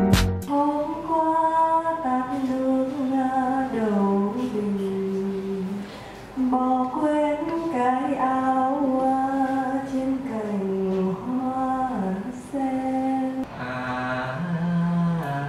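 A woman singing a slow, unaccompanied lullaby, with long held notes that glide from one pitch to the next.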